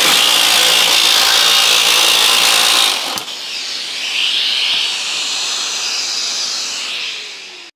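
Cordless jigsaw cutting thin sheet metal with its pendulum action set to three, the wrong setting for metal, which makes the saw tend to jump along the sheet. The cut stops about three seconds in, and a dust extractor keeps running more quietly until the sound cuts off just before the end.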